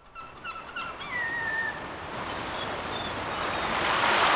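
Surf sound effect swelling steadily louder, with bird calls over it: several short calls, then a longer falling cry about a second in, then a few fainter calls.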